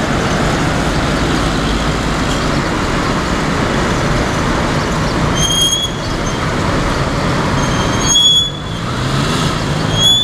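Steady road-traffic noise from a busy city boulevard, with a brief high squeak three times in the second half.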